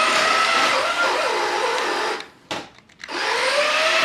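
Small electric motor of a toy RC drift car whining at full throttle, with a whir, in two runs of about two and a half seconds each. In each run the pitch rises as the car gathers speed. A click comes between the runs.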